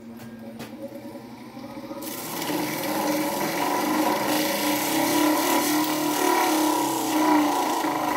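Bench grinder with MDF wheels running, a bar of wax pressed against the spinning grinding wheel to load it with wax. A steady motor hum, joined about two seconds in by a loud rubbing hiss that stops near the end.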